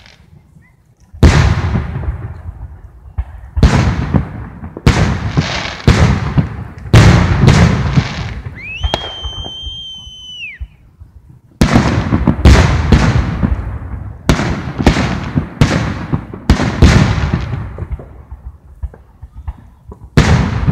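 Fireworks display: aerial shells bursting loudly one after another, each bang trailing off, at times two or three a second. About halfway through, a high steady whistle sounds for about two seconds, sliding up as it starts and down as it ends.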